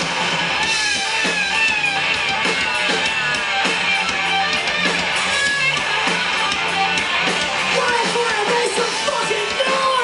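Live rock band playing an instrumental passage: electric lead guitar lines that bend and slide in pitch over rhythm guitar, bass and a steady drum beat, loud through the PA.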